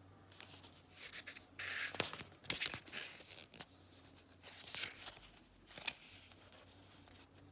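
Paper and cards being handled: rustling and crinkling in several short bursts, with a few sharp taps.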